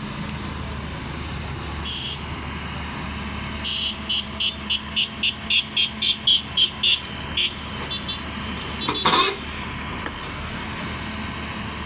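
Heavy diesel engine running steadily. Partway through comes a quick run of about fourteen short, high beeps, three or four a second, getting louder, and then a single loud blast a little later.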